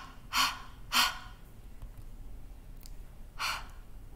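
A voice sounding out the phonics sound /h/ as short breathy "h" puffs, three of them, two close together near the start and one about three and a half seconds in.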